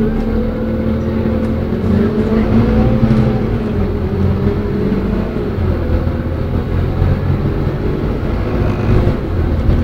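Bus engine and drivetrain heard from inside the passenger saloon while moving at speed, a steady low rumble with road noise. A whine rises and falls in pitch over the first few seconds, then settles.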